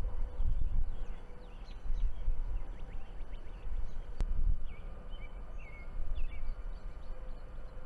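Birds chirping over an uneven low rumble, with a single sharp click about four seconds in.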